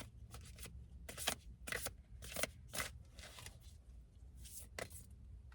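A deck of oracle cards being shuffled by hand: a string of short, irregular papery swishes.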